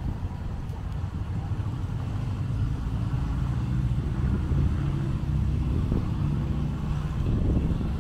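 A car engine running and growing louder as the car approaches.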